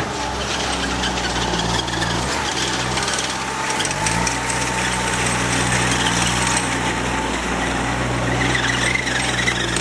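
Diesel engine of a Terex PT60 compact track loader running steadily, its pitch dipping and recovering briefly twice as it takes load, over a continuous metallic rattle and clatter from the machine.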